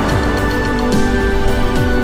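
Background music: held chords over a slow beat of deep drum hits.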